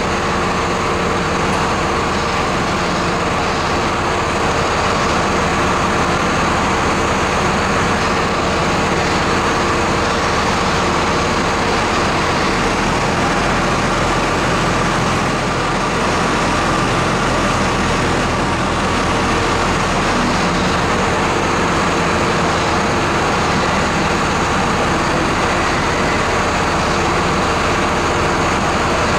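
A crane engine running steadily under load as it hoists a wrecked car on its chain: a continuous heavy drone with a steady whine over it. About halfway through, the low rumble changes for roughly ten seconds, then settles back.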